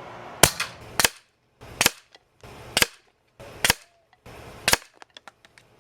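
Umarex Notos .22 air rifle firing: six sharp shots roughly a second apart, with a few faint small clicks after the last one.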